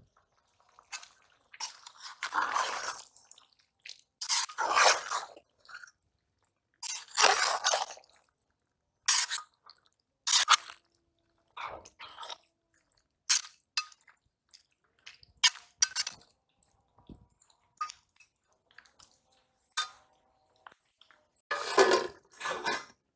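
A plastic spice packet crinkling in several short bursts while it is handled and shaken, with scattered clicks and clinks of a steel spoon and pot. Near the end, a louder metal clatter as a lid goes onto the steel cooking pot.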